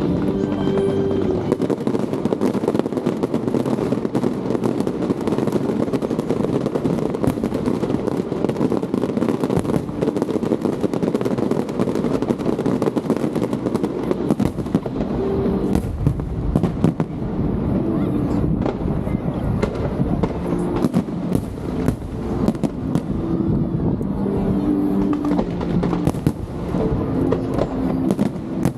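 Aerial fireworks display: a continuous run of bangs and crackling bursts, one after another without a break.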